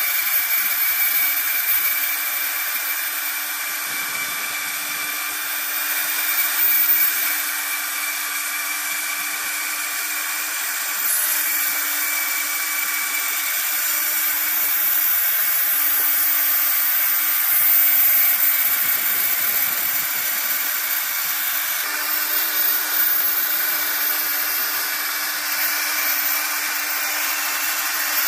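CNC milling spindle cutting aluminium checker plate: a steady high whine with the hiss of the cutter, swelling and easing slightly as the tool moves along its path.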